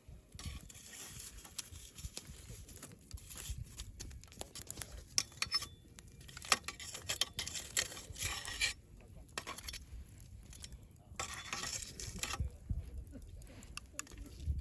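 Wood campfire crackling, with many sharp, irregular pops and snaps and two longer spells of hissing.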